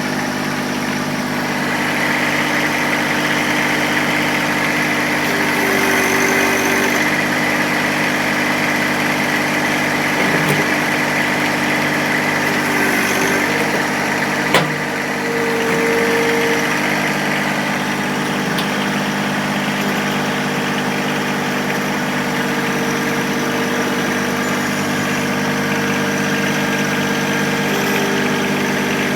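John Deere 1023E compact tractor's three-cylinder diesel running steadily under work, with a higher tone coming and going several times. A single sharp knock sounds about halfway through.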